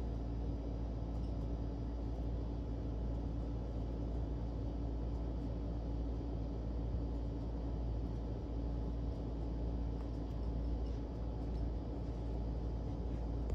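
Steady low hum with a faint constant drone, unchanging throughout.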